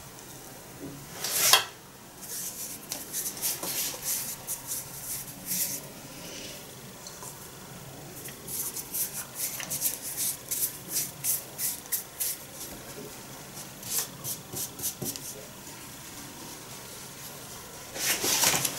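Hands rolling sticky sweet adzuki bean paste (anko) into balls between starch-dusted palms: runs of quick rubbing strokes, with a louder scrape about a second and a half in.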